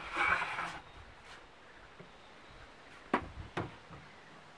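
Handling sounds as attachments are unfastened from a home-made angle-grinder stand: a brief scraping or rustling at the start, then two sharp knocks about half a second apart a little after three seconds in.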